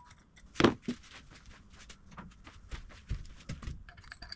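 Scattered clicks and taps of small steel parts being picked at and handled inside a disassembled bench vise's cast body. Near the end comes a brief metallic jingle.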